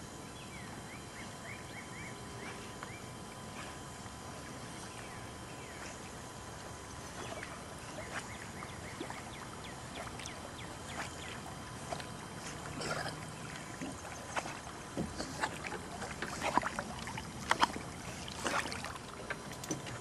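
Pond water splashing and lapping as animals swim through it, with sharper, louder splashes and knocks crowding in over the last five seconds.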